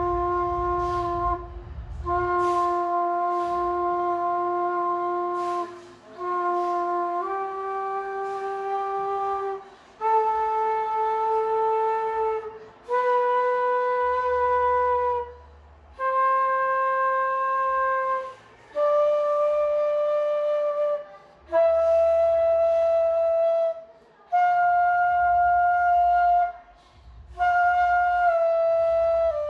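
Bamboo bansuri flute in F base playing about a dozen long, clear held notes with short breaks between them, stepping up a scale and turning back down near the end, to show its tone.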